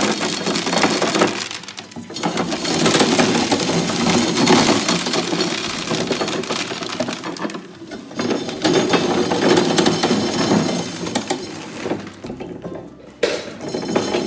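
John Deere 10A hammer mill grinding corn: a loud, dense clattering and crackling as the corn is smashed. The noise comes in three bouts, dipping briefly about two, eight and thirteen seconds in.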